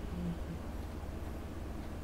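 Brown tabby cat snoring in deep sleep: one short, low buzzing snore just after the start, over a steady low hum.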